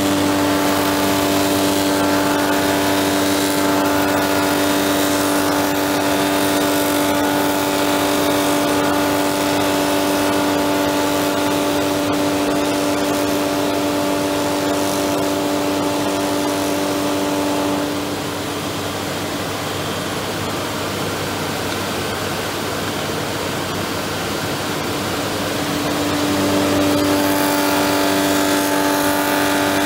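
Mattison rotary knife lathe running, its spinning knife cutterhead shaping a pine spindle blank: a steady machine hum with several held pitched tones over a hiss. The tones drop out and the sound gets a little quieter about eighteen seconds in, then come back louder about twenty-seven seconds in.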